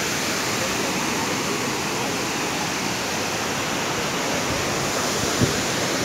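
Kynrem Falls, a tall waterfall, pouring down its cliff into a rocky stream: a steady, even rush of falling and tumbling water. A brief low thump about five and a half seconds in.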